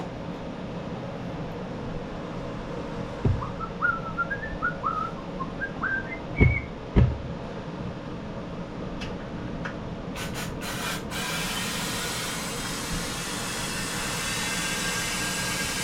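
Compressed air hissing steadily into a small engine's fuel tank from about eleven seconds in, after a few short sputters, pressurizing the tank to force out the last of the stale fuel. Earlier come a string of short rising squeaky whistles and a few knocks.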